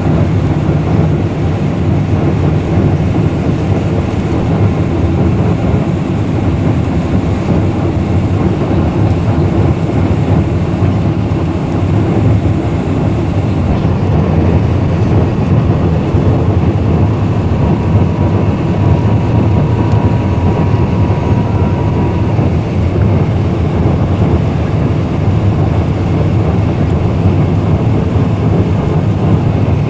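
Steady, loud cabin noise inside a Boeing 747-400 airliner: engine and airflow noise, with a faint high steady tone for a few seconds about two-thirds of the way through.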